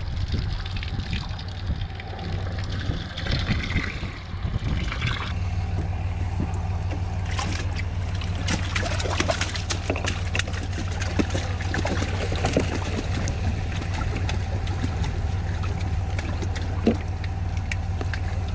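Water splashing and pouring out of a mesh fish weigh-in bag as it is shaken and drained, for about the first five seconds. Then scattered drips and small ticks over a steady low hum.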